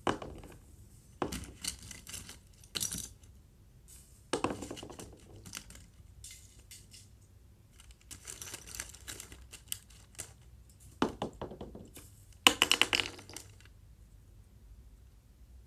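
Small plastic toys clicking and clattering against each other as a hand rummages through a wicker basket of them, in scattered clusters of clicks every second or two, the loudest about twelve and a half seconds in.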